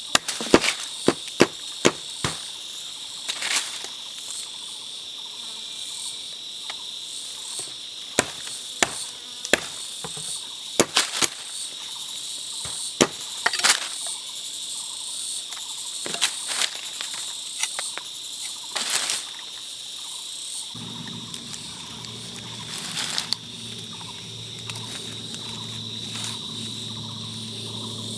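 Steady high chirring of forest insects such as crickets, with irregular sharp knocks and taps over it. A low steady hum comes in about three-quarters of the way through.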